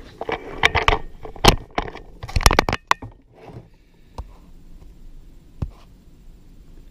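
Tools and small parts being handled and shifted on a workbench: a busy run of knocks, clicks and scrapes for about the first three seconds, then a couple of single clicks.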